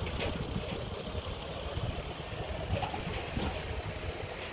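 Petrol-station forecourt noise: a steady low rumble with a hiss over it.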